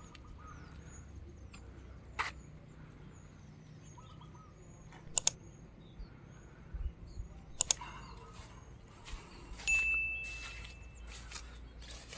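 Small birds chirping over and over in the background, with three sharp clicks along the way. Near the end comes a burst of hiss with a brief steady high tone.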